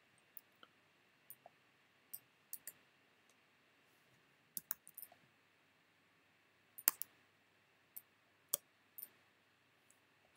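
Faint, irregular clicks of a computer mouse and keyboard, about a dozen scattered singly and in quick pairs, the sharpest about seven seconds in.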